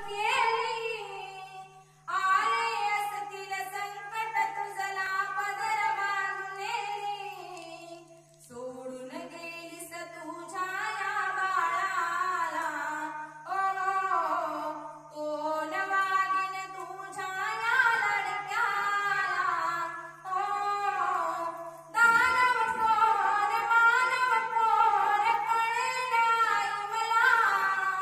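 A woman singing a slow Marathi song in long phrases with gliding, ornamented pitch and short pauses for breath between them, over a steady low hum.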